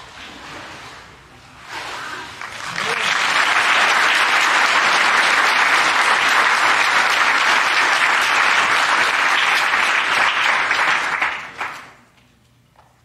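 Congregation applauding a baptism by immersion. The clapping swells over the first few seconds, holds steady, and dies away about a second before the end.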